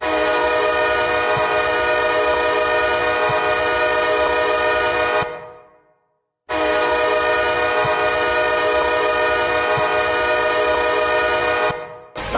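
Hockey goal horn sounding two long blasts of about five seconds each, a many-toned chord that fades away at the end of each blast, with a brief silence between them. A song starts right after the second blast.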